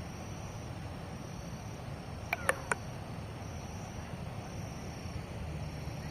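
Steady low rumble of outdoor riverside ambience, with three short sharp clicks in quick succession about two and a half seconds in.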